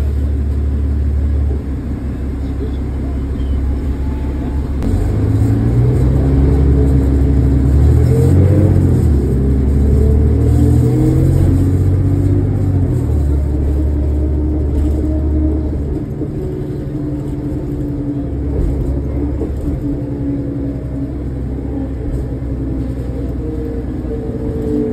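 Engine and drivetrain of a 2005 New Flyer D40LF diesel transit bus heard from inside the passenger cabin, a loud low drone. The pitch climbs and falls in a few steps as the bus accelerates, settles to a lower drone from about two-thirds of the way in, and starts climbing again near the end.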